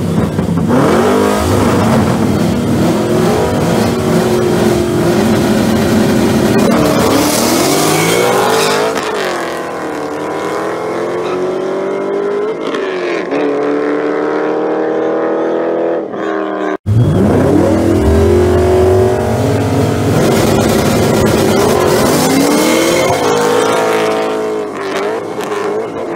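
A Ford Mustang and a Chevrolet Corvette racing side by side from a launch, engines loud and climbing in pitch, then dropping back at each gear change, several times over. About 17 seconds in the sound cuts off sharply and a second hard launch and acceleration through the gears begins.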